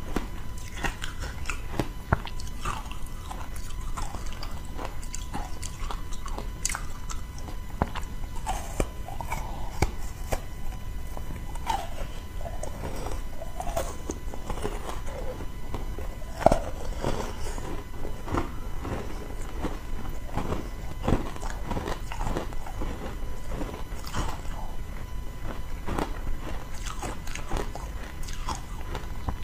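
Biting and chewing frozen matcha tea ice shaped like a corn cob: a steady run of sharp crunches and cracks as the ice breaks between the teeth, the loudest crack about 16 seconds in.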